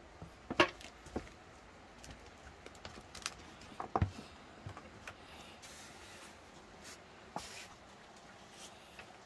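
Irregular knocks, clicks and rustles of someone moving through a cluttered shed: footsteps and objects bumped. There is a louder thump about half a second in, another about four seconds in, and brief rustles near the end.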